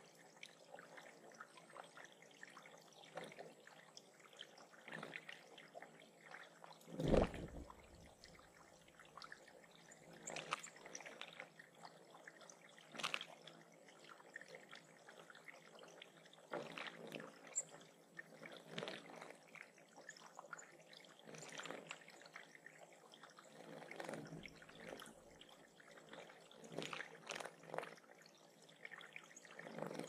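Water trickling and splashing in a small bird pond, in irregular little splashes, with one louder low thump about seven seconds in.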